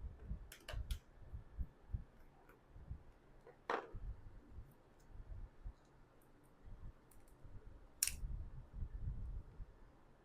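Light clicks and small knocks from hands and tools working on the plastic case of a portable oxygen machine's battery pack, with two louder sharp snaps near the middle and about eight seconds in.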